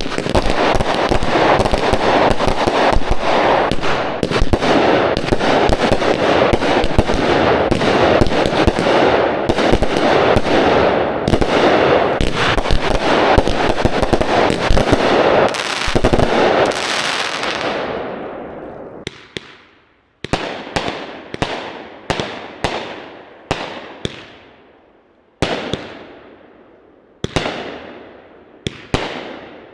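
Three Raccoon Fireworks Breakthrough 200-gram consumer firework cakes firing at once: a dense run of overlapping shots and breaking shells that thins and fades out at about 18 seconds. After a short gap come single firework shots about once a second, each trailing off.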